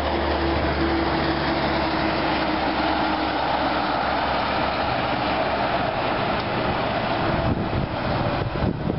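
Heavy trucks driving past: a diesel engine running steadily at first, then tyre and road noise as a second truck hauling a long empty low-loader trailer goes by.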